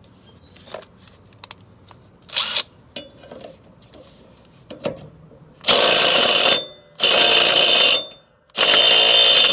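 DeWalt cordless impact driver hammering a mower blade bolt tight on the deck spindle, in three bursts of about a second each in the second half. A few light handling clicks come before it.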